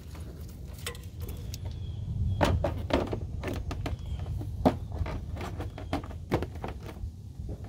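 Scattered clicks and knocks of plastic parts being handled: a wiring plug pushed into an LED light bar's connector and the Jeep Cherokee XJ's plastic factory bumper end cap fitted into place, over a low steady rumble.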